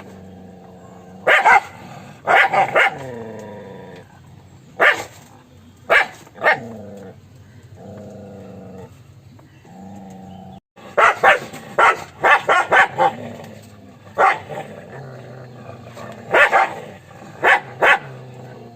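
A dog barking: single sharp barks and short runs of barks, with a quick string of about eight barks a little past halfway.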